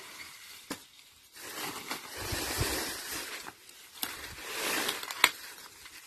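Green corn stalks and leaves rustling as they are pulled and gathered by hand, in two spells, with a few sharp snaps; the loudest snap comes near the end.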